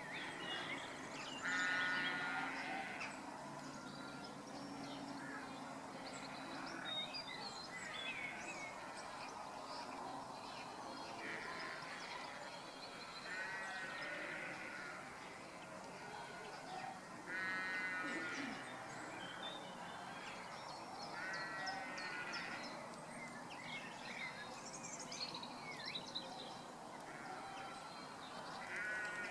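Animal calls: harsh, rasping calls about a second long, repeated every few seconds, over scattered short, high chirps.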